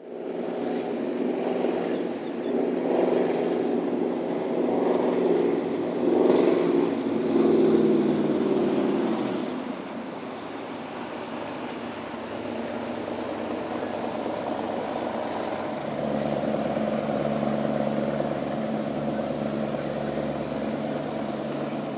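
Motorboat engines running, louder at first, with the pitch dropping about nine seconds in as the boat slows or goes by. A steadier engine sound follows, and another engine comes in about sixteen seconds in.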